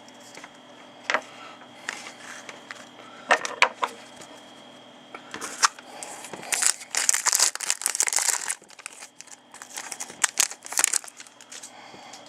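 Trading-card pack wrapper crinkling and being torn open, with a few sharp clicks and taps of handling beforehand and another burst of crinkling near the end.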